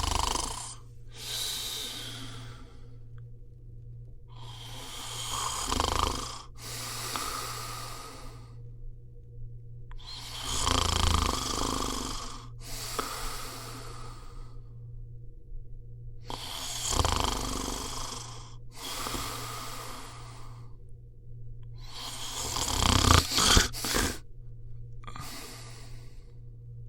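Snoring: a rattling snore on each in-breath, with a softer, breathier out-breath about a second and a half later, in an even cycle about every five and a half seconds.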